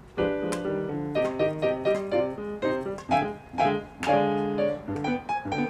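Background piano music: a light tune of struck notes moving along at several notes a second.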